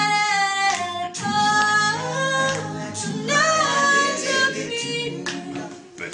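A cappella group singing: a female voice sings a gliding, bending line over held low harmonies from other voices.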